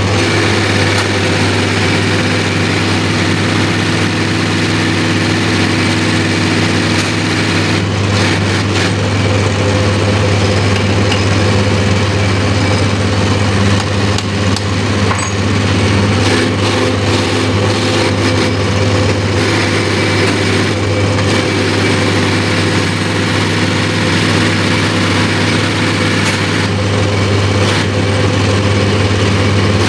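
Diesel fuel injection pump test bench running, its drive turning an inline injection pump, a loud steady mechanical hum. Its tone shifts slightly about eight seconds in, and there are a few light clicks.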